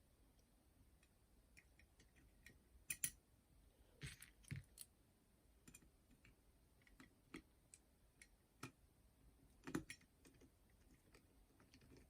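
Faint, scattered clicks and taps of small metal parts and tools being handled during boombox reassembly, with a double click about three seconds in, a short cluster a second later and the sharpest tap near the end.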